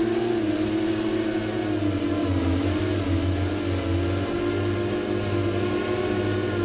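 Motors of a 4S FPV quadcopter (iFlight XING 2208 1700 kV) whining steadily in flight, the pitch wavering slightly up and down with the throttle.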